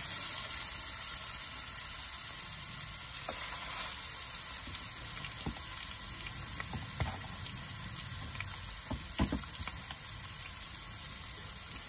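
Meat frying in a pan: a steady sizzle with a few light pops.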